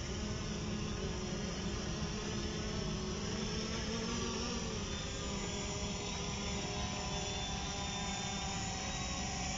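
Hubsan Zino quadcopter's propellers buzzing steadily as it descends to land on automatic return-to-home, the pitch shifting slightly about halfway through.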